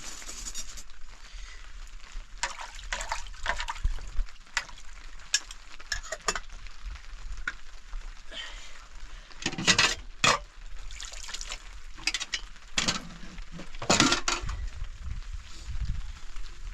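Food sizzling in a pan while a utensil stirs and scrapes it, with short, sharp clinks and scrapes throughout, the loudest about ten and fourteen seconds in.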